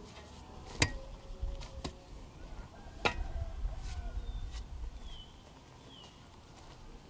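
Three sharp clicks or knocks, about a second apart, with a few short high chirps falling in pitch later on.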